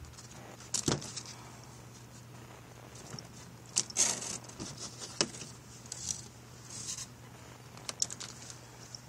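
A cat's paws scrabbling and batting at a cardboard box, in scattered short scratches and rustles with a few sharp taps, over a steady low hum.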